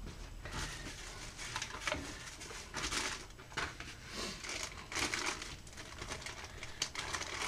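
Clear plastic packaging bag and a paper leaflet crinkling and rustling as hands handle them, in irregular bursts.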